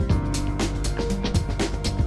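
Background music with a steady drum beat under sustained instrumental tones.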